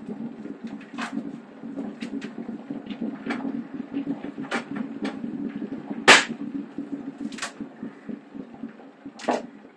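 Cling film pulled off the roll and torn, with a string of crackles and sharp snaps, the loudest about six seconds in. A steady low hum sounds under it throughout.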